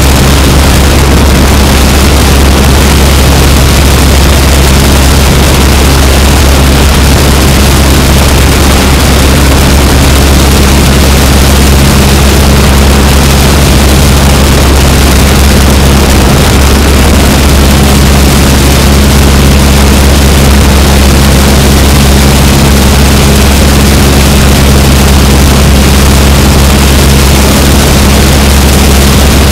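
Aeronca Chief's four-cylinder Continental A-65 engine and propeller running steadily during the climb after takeoff: a constant low drone under heavy slipstream wind noise on an outside-mounted camera's microphone.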